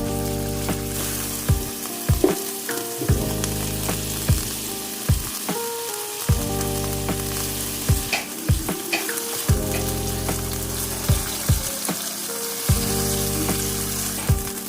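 Food frying in a pan with a steady sizzle, while a utensil stirs and taps against the pan about once a second.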